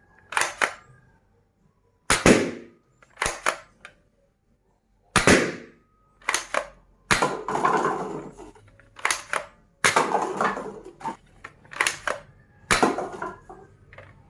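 A toy gun being fired and worked, giving about a dozen sharp cracks and snaps at uneven intervals with short pauses between them.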